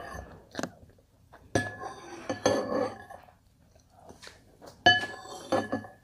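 Metal spoon clinking and scraping against a glass bowl of cereal and milk. There are a few sharp clinks, about a second and a half in and loudest near the end, each leaving a brief glassy ring.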